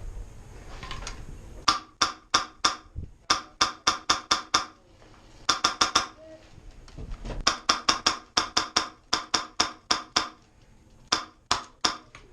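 Airsoft gun firing rapid single shots, sharp cracks in several quick strings of a few to a dozen shots, with short pauses between strings.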